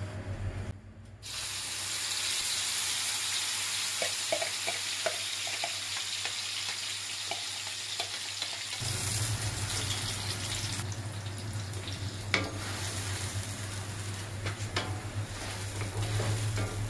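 Chopped chili paste frying in hot oil in a wok, sizzling steadily from about a second in. A wooden spatula stirs and scrapes it around the pan, and a low steady hum joins about halfway.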